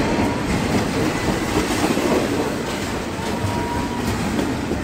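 CSX double-stack intermodal freight train passing close by: a steady rumble of its container well cars rolling over the rails, with light clicks of the wheels over the track.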